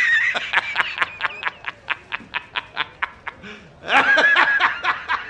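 A man laughing hard: a high, squealing cackle, then a fast run of short "ha" pulses, about six a second. The high cackle comes again about four seconds in, followed by more short pulses.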